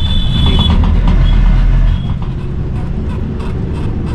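Bus in motion heard from inside the cabin: steady engine and road rumble, which drops a little about two seconds in.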